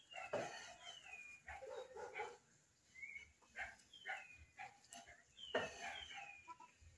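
Ducklings peeping: a series of faint, high peeps, each falling in pitch, with a few lower animal calls in between.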